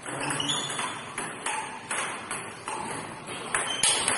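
Table tennis rally: the ball clicking sharply off the bats and the table in quick alternation, about three hits a second.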